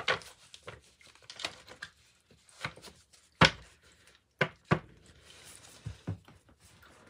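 A deck of tarot cards being shuffled by hand: irregular short rustles and flicks of the cards, with a few sharp taps, the loudest about three and a half seconds in and two more just before five seconds.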